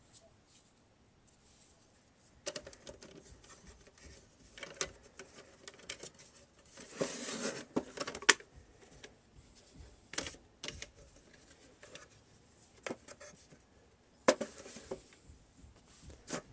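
Irregular clicks, taps and a short scrape of a DVD recorder's drive parts being handled as its cover is fitted back on, with a few sharp snaps between about eight and fifteen seconds in.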